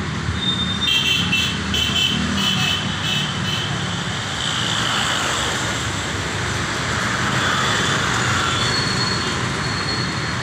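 Road traffic noise: a steady rumble of passing vehicles. About a second in comes a quick run of short high-pitched beeps lasting a few seconds.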